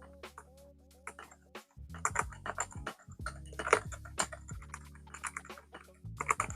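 Typing on a mechanical keyboard with silent switches and pudding keycaps: rapid key presses in uneven runs, over background music.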